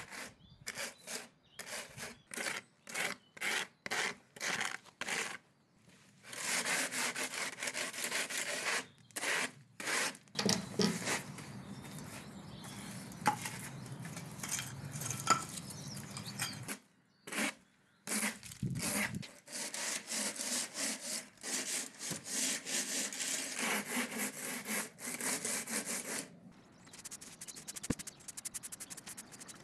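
Garden rake scraping moss and muck across stone paving slabs in short repeated strokes, about two a second at first, then in longer, near-continuous drags, with quicker, finer scratching near the end.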